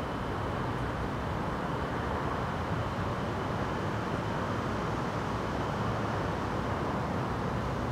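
Steady outdoor background noise, an even hiss with a faint high steady tone over it, unchanging throughout. No thunder is heard.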